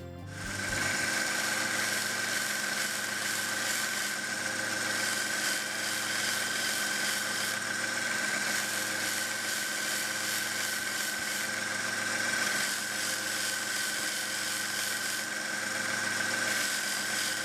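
WEN 1x30 belt grinder running steadily, a steel screwdriver shaft held against a coarse conditioning belt: a constant high whine over a sanding hiss.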